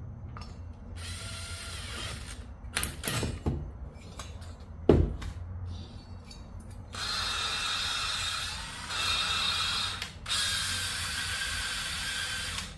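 Cordless drill spinning an engine valve against its seat in a mower cylinder head, the valve grinding compound grinding valve and seat to a smooth, sealing finish. It runs in three stretches of a few seconds each from about seven seconds in; before that come handling clicks and a sharp knock about five seconds in.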